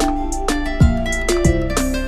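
Instrumental background music with a steady beat: plucked-sounding melody notes over a low thump that recurs about every second and a bit.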